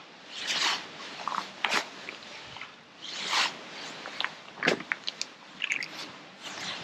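Close rustling of a waterproof jacket and sharp clicks from handled fishing tackle: a few short scratchy rustles with single clicks in between, several clustered near the end.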